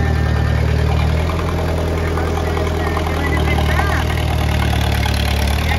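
1949 Ford 8N tractor's four-cylinder flathead engine running steadily at low speed as the tractor backs out slowly.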